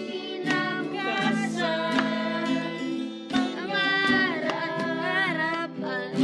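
Guitar strumming a simple chord progression while young voices sing a short melody over it, trying out a newly written hook.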